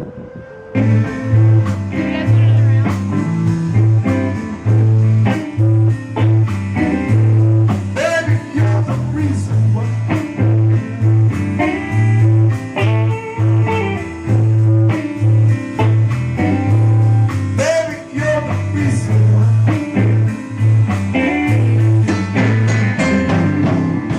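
Blues music with guitar over a strong, steady bass line, starting about a second in.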